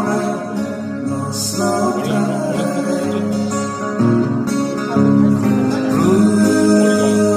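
Live acoustic guitar band music, a slow country ballad, with guitar accompaniment and a singing voice carrying the melody.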